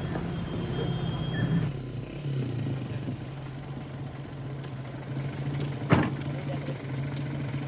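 Small vintage car's engine idling steadily, and a car door shutting with a sharp knock about six seconds in.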